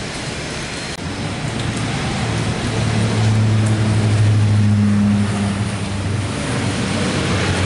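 Bombardier Dash 8 Q400 turboprop at take-off power on its take-off roll: a low, steady propeller drone that builds from about a second in and is loudest in the middle, over an even hiss.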